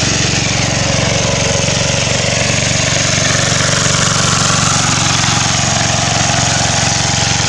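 Small engine of a hand tractor running steadily as it drags an implement through a flooded rice paddy, with an even low drone and no change in speed.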